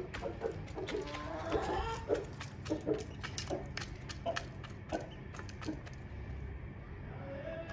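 Aseel hen clucking while she pecks grain from a metal feeder pan, her beak tapping the metal and grain in quick, irregular clicks. The clucks come mostly in the first three seconds; the pecking clicks go on throughout.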